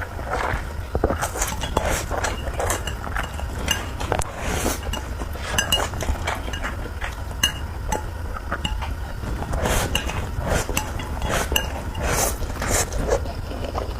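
Eating utensils clinking repeatedly against a bowl during close-miked noodle eating, irregular short clicks over a steady low hum.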